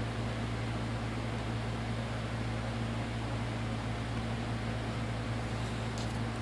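Steady low hum with a constant hiss, like a fan or appliance running, with a couple of faint ticks near the end.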